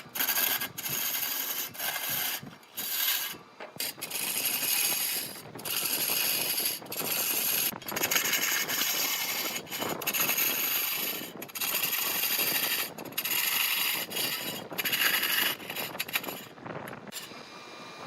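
Turning tool cutting into wood spinning on a large wood lathe: a rasping scrape in repeated passes of a second or two, broken by brief pauses. It drops to a quieter steady running sound near the end.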